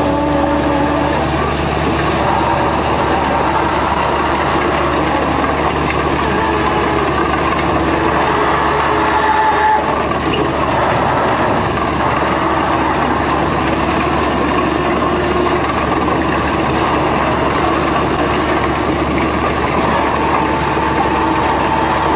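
Heavy deck machinery on a tuna fishing vessel, running loud and steady while the net full of tuna is hauled aboard. Whining tones rise over the din and fade again: once near the start, once about halfway, and again near the end.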